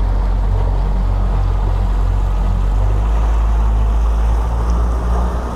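Boat's outboard motor running steadily under way: an even low hum with water rushing past the hull.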